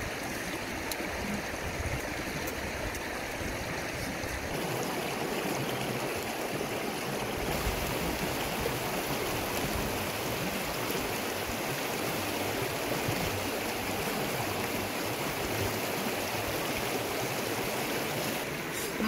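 Shallow river running over rocks and stones: a steady rush of water.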